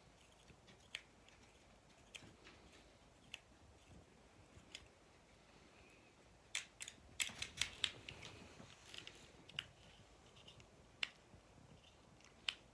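Faint, sharp little clicks and ticks of a Phillips screwdriver turning a rusty screw in a vintage G.I. Joe action figure's plastic body. The clicks come one at a time at first, then bunch into quick clusters past the middle.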